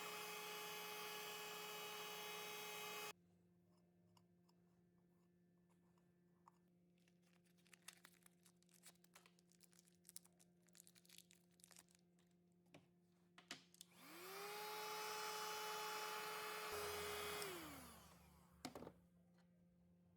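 Small electric power tool motor running in two bursts: a steady whine that cuts in and stops abruptly after about three seconds, then a second run that spins up, holds and winds down. Light clicks and taps come between the two runs.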